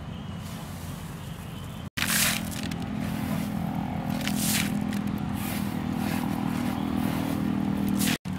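Unhusked green rice grains rustling and hissing in short bursts as they are scraped and poured by hand, over a steady engine-like motor hum. The sound breaks off for an instant about two seconds in and again near the end.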